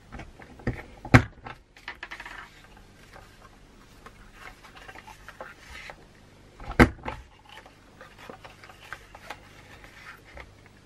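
Stampin' Up! Trio punch pressed down through cardstock, each press a sharp click, two close together about a second in and the loudest about two-thirds of the way through. Between presses the cardstock rustles as it is slid and repositioned under the punch.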